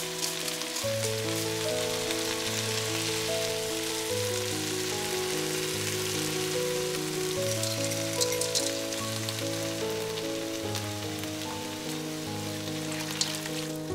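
Diced carrots and green beans sizzling in hot olive oil in a wok as soaked quinoa, chopped tomatoes and green peas are added, with a couple of small knocks. Soft background music plays throughout.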